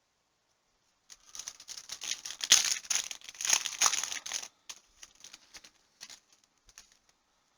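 Cellophane trading-card pack wrapper crinkling and tearing as it is opened, starting about a second in and lasting about three seconds, followed by a few faint ticks.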